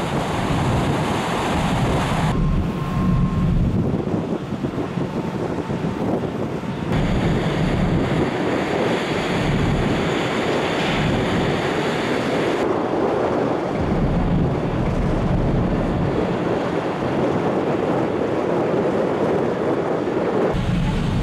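Wind buffeting the microphone on a ferry's open deck: a steady rushing noise with gusty low rumbles, its character shifting abruptly a few times.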